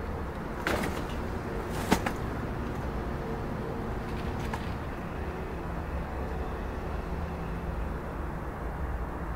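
Steady low rumble of city traffic, broken by two sharp knocks in the first two seconds, the second the louder, and a fainter knock about four and a half seconds in.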